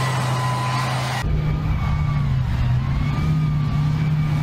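Main battle tank driving across muddy ground: its engine running steadily, with a low hum and a high, wavering whine. The sound changes about a second in.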